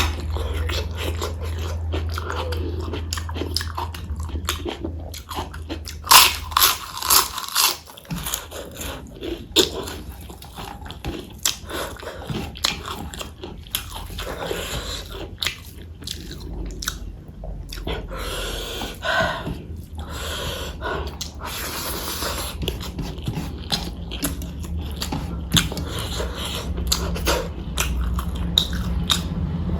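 Close-miked chewing and biting of food, with irregular wet clicks and a run of crisp crunches about six to seven seconds in, over a steady low hum.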